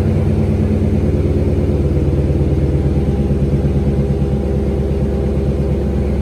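Dodge Challenger R/T's 5.7-litre HEMI V8 idling steadily.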